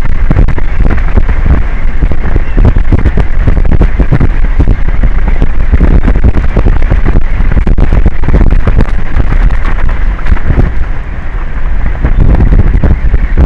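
Strong wind buffeting an outdoor camera microphone: a loud, continuous crackling rumble, distorted by overload.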